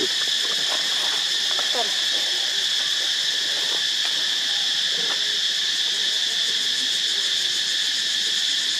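Steady, unbroken insect chorus, high-pitched and even, with a few faint short squeaks or calls underneath.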